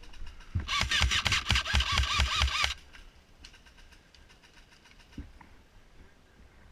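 Airsoft electric gun (AEG) firing a full-auto burst of about two seconds, its motor and gearbox whirring under a fast run of shots.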